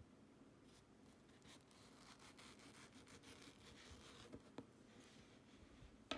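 Ceramic knife cutting through a ripe mango's skin and flesh, a faint scraping from about a second and a half in until about four and a half seconds, with a couple of light ticks. Near the end comes one sharp tap on the plastic cutting board.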